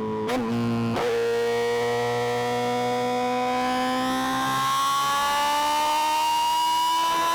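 Suzuki GSX-R 750's inline-four engine under way, with two quick gear changes in the first second, then pulling in one gear with its pitch rising slowly and steadily as the bike accelerates.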